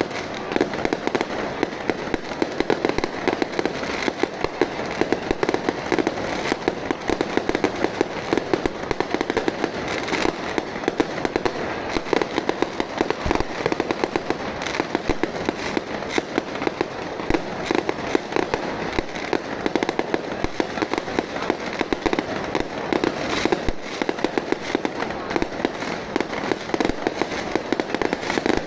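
Procession fireworks and firecrackers going off in a dense, unbroken run of rapid cracks and bangs, many each second.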